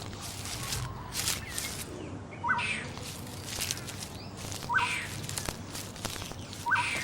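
A short animal call repeated about every two seconds, over rustling noise.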